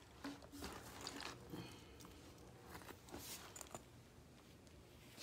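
Faint rustling and crinkling as a woven handbag is handled, in a few short bursts during the first couple of seconds and again about three seconds in.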